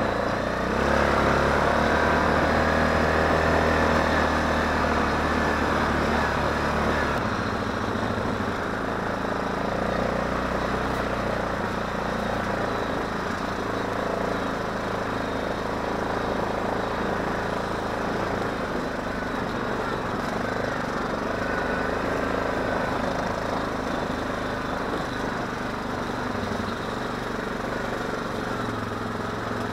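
ATV engine running as the quad drives along a dirt trail. It is louder with a deeper hum for the first several seconds, then settles to a steadier, slightly quieter note about seven seconds in.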